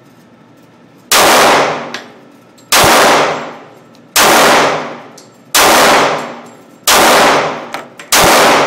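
Colt Defender compact .45 ACP pistol fired six times in slow, even succession, about a second and a half apart. Each shot is loud and echoes off the walls of an indoor range.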